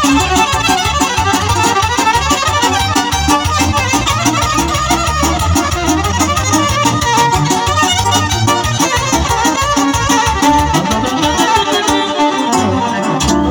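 Live amplified band music: a violin playing a traditional-style melody over electronic keyboard backing, played through PA speakers.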